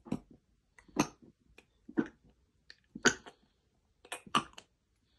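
Sick cat retching and gagging, a sharp heave about once a second, six in all, with two close together near the end: it is bringing up something it ate, taken for poisoning.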